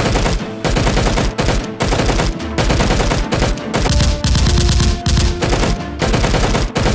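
Bursts of rapid automatic gunfire, with short gaps between the volleys.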